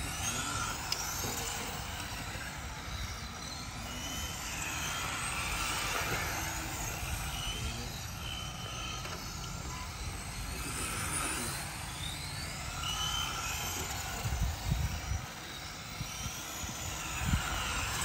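1/10-scale RC touring cars racing round a cone course, their motors whining and rising and falling in pitch as the cars accelerate, brake and pass by.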